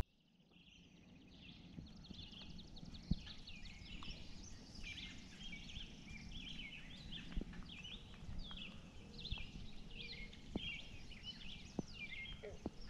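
A faint dawn chorus of many birds singing at once, their short chirping notes overlapping throughout. It fades in just after the start, and a sharp click sounds about three seconds in.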